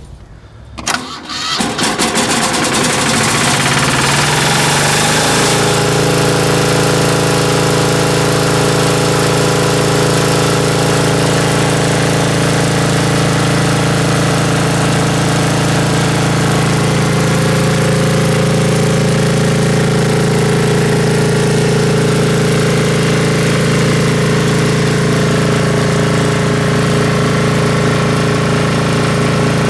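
Diesel engine of an Ingersoll-Rand MC-2A rotary screw air compressor being started: a brief spell of cranking, then it catches and picks up speed over a few seconds before settling into a steady, even run.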